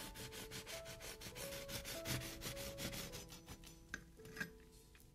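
Kitchen knife sawing through the baked crust of a cabbage pie: a quick, even rasping of about five strokes a second that fades out about four seconds in, followed by two sharp ticks.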